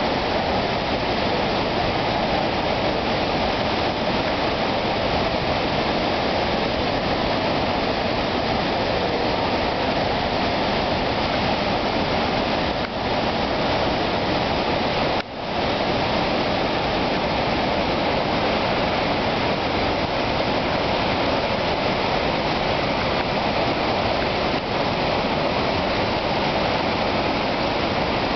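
Steady rush of Iguazú Falls, heavy water pouring over the cascades, with a brief dropout about halfway through.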